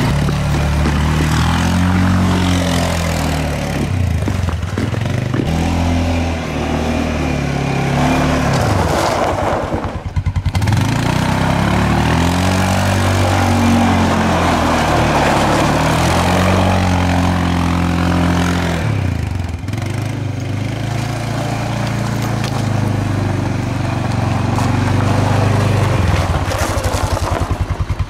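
1999 Kawasaki Prairie 400 ATV's single-cylinder four-stroke engine running on its freshly rebuilt carburetor as the quad is ridden. The pitch rises and falls in repeated swells of throttle, and the engine drops to a low idle near the end.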